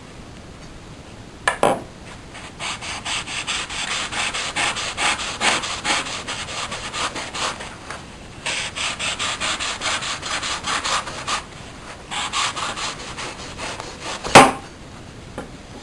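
Sharp kitchen knife sawing back and forth through a roll of kitchen paper on a chopping board, in three runs of quick strokes. A knock on the board about a second and a half in, and a louder knock near the end.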